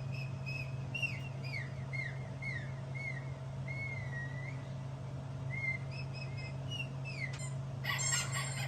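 Whistling: a string of short whistled chirps, many of them quick falling notes, with one longer wavering note about four seconds in. A louder, harsher squeaky sound starts near the end.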